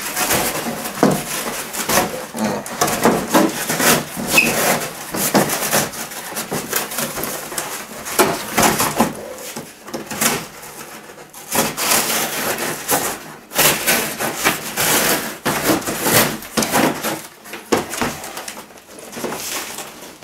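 Extrema Ratio Task C knife sawing through thick corrugated cardboard with its serrated edge: repeated rasping back-and-forth strokes, broken by a few short pauses.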